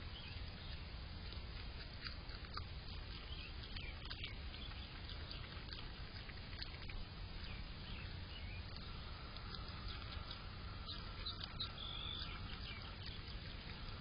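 Groundhog chewing food close to the microphone: a run of small crunchy clicks, uneven in pace, over a steady low hum. A thin steady high tone sounds for a few seconds in the second half.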